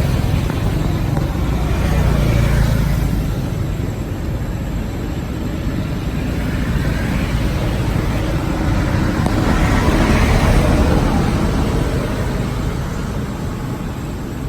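Road traffic: a steady engine rumble and tyre noise, swelling twice as vehicles pass, a couple of seconds in and again about two-thirds of the way through.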